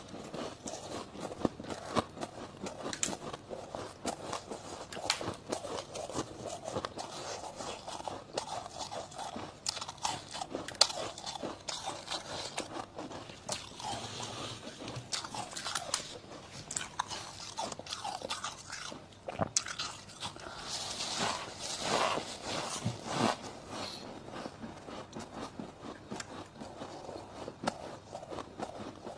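Dry deep-freezer frost being bitten and chewed close to the microphone: a dense, irregular run of squeaky crunches.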